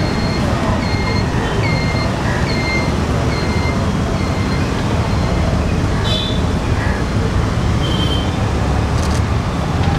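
Steady urban road traffic noise, with a short high chirp repeating about every two-thirds of a second through the first half.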